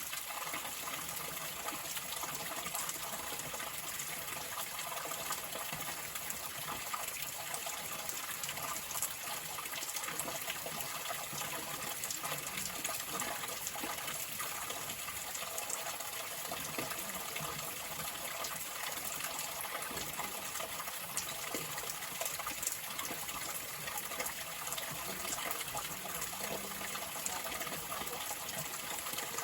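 Water flowing steadily, a continuous even rush without pauses.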